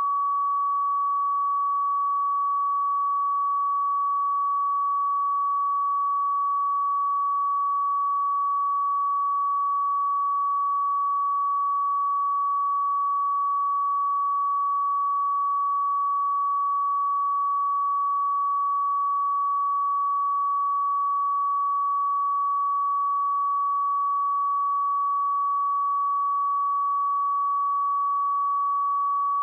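Pure 1133 Hz sine-wave test tone, held steady at one pitch and level.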